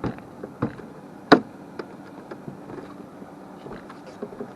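A few scattered knocks and clicks over a low steady background, with one sharp, loud knock about a second in.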